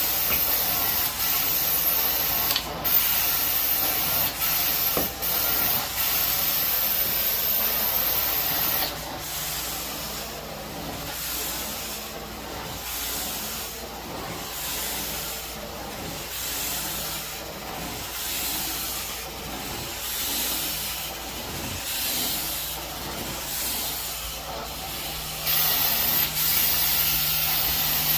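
Carpet-cleaning wand, a 4-jet lightweight titanium model, hissing steadily as it sprays and extracts. About nine seconds in it turns quieter, with rhythmic whooshes about once a second as the wand is stroked over the carpet. Near the end the loud steady hiss comes back.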